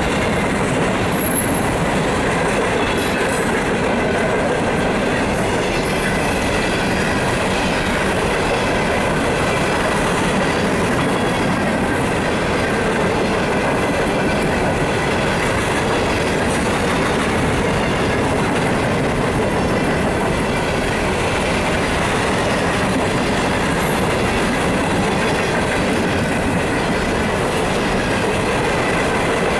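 Freight train of hopper cars rolling past, a loud, steady rumble and clatter of steel wheels on the rails with faint high tones running through it.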